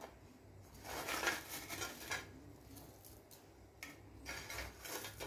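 Deep-fried bread cubes being tipped onto cooked rice in a pressure cooker, landing with soft pattering and light handling of the dish, in two spells: about a second in and again near the end.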